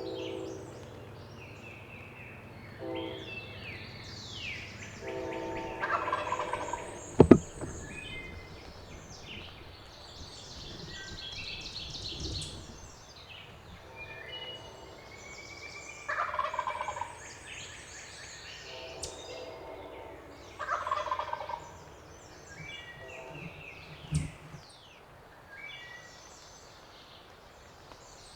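Wild turkey gobbling several times, with songbirds chirping throughout. Two sharp knocks are heard as well, the louder one about seven seconds in.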